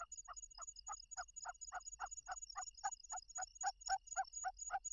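Field-rat lure call: a rapid, even series of short squeaky chirps, about three to four a second, the sound Isan rat hunters use to draw rice-field rats.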